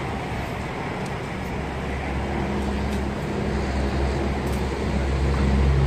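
An engine running close by: a low, steady hum that builds up about two seconds in and grows louder towards the end, over general market background noise.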